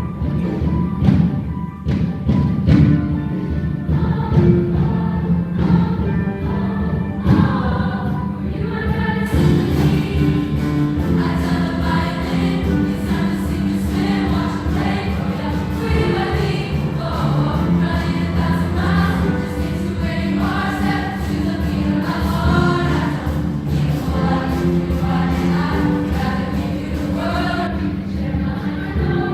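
Junior high choir singing in parts with instrumental accompaniment. The opening seconds are mostly sharp percussion hits, and the voices come in about nine seconds in.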